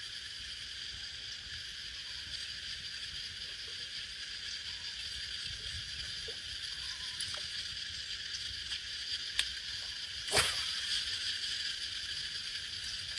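Steady buzzing chorus of insects in the waterside vegetation, with a few faint clicks scattered through it and one sharper click about ten seconds in.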